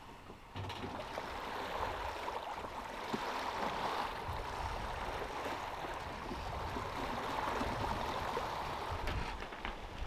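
Sea water washing and splashing alongside a sailboat under way, a steady rushing that starts about half a second in.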